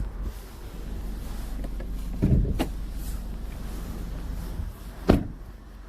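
Car door being opened and then slammed shut about five seconds in, the slam being the loudest sound, with a clunk about two seconds in, over the steady idle of a Mk7 Volkswagen Golf GTI's 2.0-litre turbocharged four-cylinder engine.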